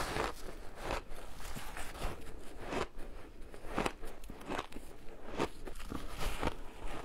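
Crunching and chewing of a block of colourful shaved ice, bitten and chewed with many irregular sharp crunches.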